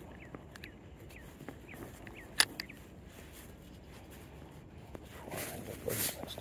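Spinning rod and reel handled from a kayak: a sharp click about two and a half seconds in, then a swish near the end as the rod is cast. Small birds chirp in short falling notes in the background.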